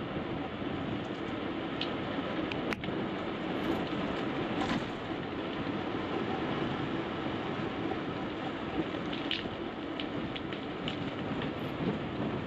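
Bicycle rolling downhill on a rough country lane: steady tyre-on-tarmac noise and rattling from the bike, with a few small clicks from bumps.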